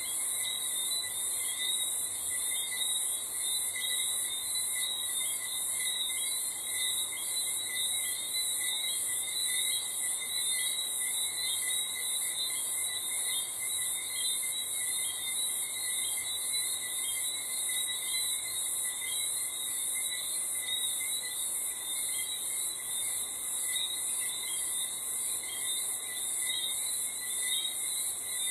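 Night chorus of crickets: a steady high-pitched trill that pulses evenly, with fainter, lower, irregular chirping beneath it.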